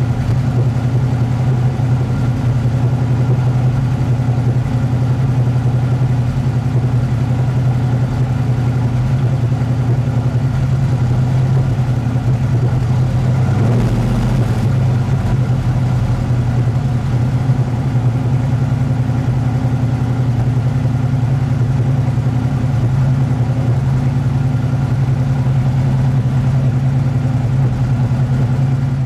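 Restored vintage muscle car engine idling steadily with a deep, even tone.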